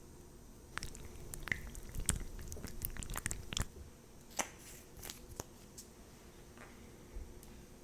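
Close-up soft clicks, taps and brief crunchy rustles of makeup items being handled, most of them in the first five seconds, then only a few.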